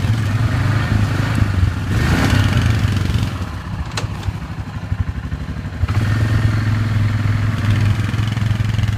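ATV engine running steadily beneath the rider, a low drone that drops in loudness for a couple of seconds midway and then comes back up, with a single sharp click about 4 seconds in.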